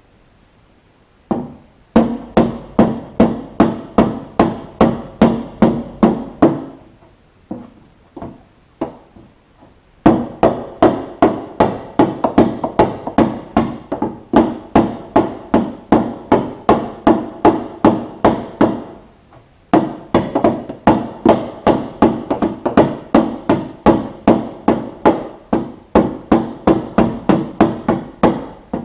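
A hammer striking the steel rear fender of a 1946 Chevrolet, beating out a dent in quick ringing blows about three a second. The blows come in three long runs with short pauses between them, and a few single strikes around the first pause.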